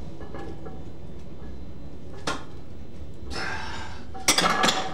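A loaded steel barbell with iron plates racked onto the bench-press uprights: a cluster of loud metal clanks with a ringing tone just after four seconds, after a single sharp click about two seconds in.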